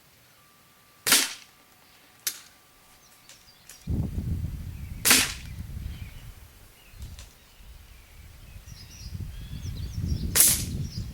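Gamo Shadow 640 spring-piston air rifle firing three sharp shots, about four and five seconds apart, with a fainter click about a second after the first.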